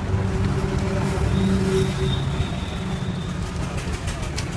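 Street traffic: a motor vehicle engine running with a steady low rumble, and a few sharp clicks about four seconds in.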